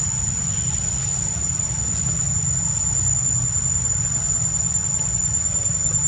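Insects buzzing in a steady high drone over a constant low rumble.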